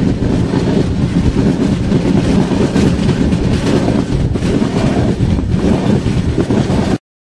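Running noise of the Bengaluru–Mumbai Udyan Express passenger train, heard from the open doorway of one of its moving coaches: a loud, steady rumble of wheels on rail with a few knocks over rail joints. It cuts off suddenly near the end.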